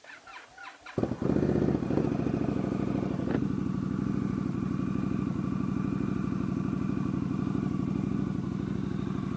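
Indian Scout Bobber's V-twin cranking on the starter for about a second, then catching and settling into a steady, evenly pulsing idle through a Bassani slip-on exhaust. This is a cold start after weeks unused, picked up by a helmet-mounted mic.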